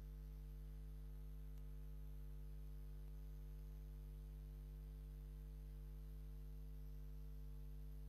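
Steady low electrical hum with no other sound, unchanging throughout: the broadcast's audio has dropped to line hum.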